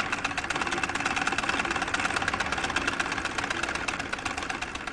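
Treadle-powered sewing machine running at speed, its needle mechanism making a fast, even clatter of many strokes a second.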